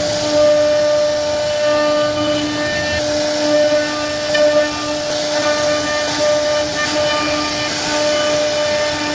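CNC router spindle running at a steady high whine while its bit cuts a scrollwork relief into a wooden panel, with a steady hiss from the cutting.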